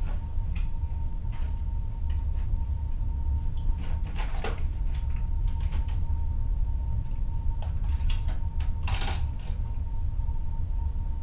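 Sea heard from inside a ship's cabin by the porthole: a steady low rumble with a faint constant hum over it. Scattered creaks and knocks come through, the loudest about four and about nine seconds in.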